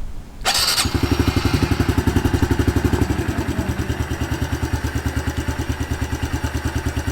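Honda CRF110 pit bike's small single-cylinder four-stroke engine starting about half a second in and settling into a quick, evenly pulsing idle, a little louder for the first couple of seconds and then steady.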